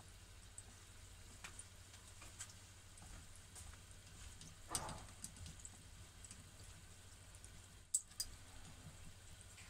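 A beef croquette deep-frying in hot oil in a home electric deep fryer: faint sizzling with scattered small pops and crackles, a louder crackle about five seconds in, and one sharp click near the end.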